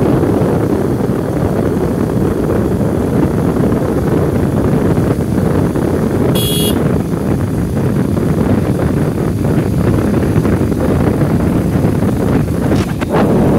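Steady, loud rumbling noise of a moving vehicle with wind buffeting the microphone. About halfway through there is a short high-pitched beep.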